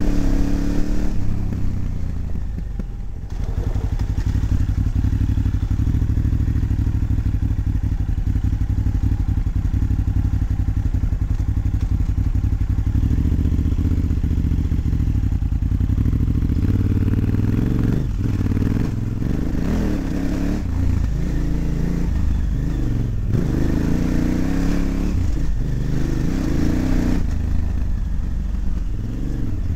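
KTM 950 motorcycle's V-twin engine running as the bike rides a rough dirt trail. The engine eases off briefly about three seconds in. In the second half there are scattered knocks and clatter from the bike over bumps.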